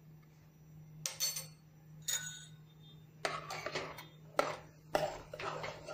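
Steel ladle clinking and scraping against the inside of a pressure cooker as chole are stirred: two single clinks, then from about three seconds in a quick run of knocks and scrapes.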